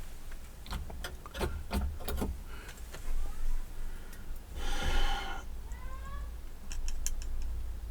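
Scattered light clicks and taps of wires and soldering tools being handled during hand soldering, with a short breathy sound about five seconds in.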